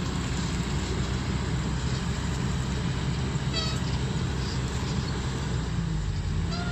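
Kobelco SK200 excavator's diesel engine running steadily, with a short high chirp about three and a half seconds in and another near the end.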